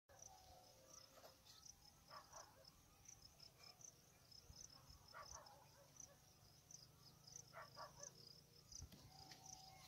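Faint crickets chirping, a steady run of short high chirps, with a few faint rustles.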